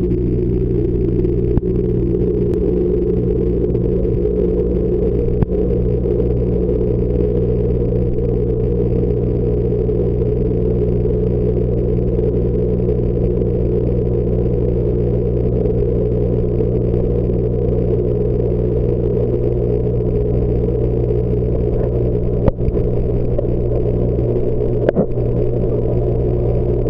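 Steady low mechanical hum of a reef aquarium's pumps and circulating water, with a few brief clicks.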